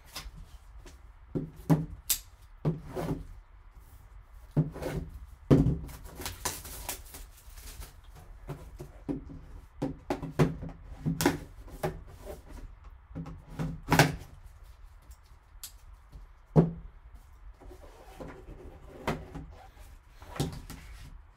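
Cardboard trading-card box being handled and opened by gloved hands: scattered taps, knocks and rustles of cardboard and packaging, with a longer rustle about six seconds in.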